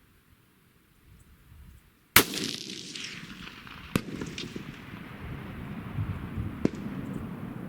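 A single loud rifle shot about two seconds in, followed by a long rolling echo that carries on for several seconds; two fainter sharp cracks follow later.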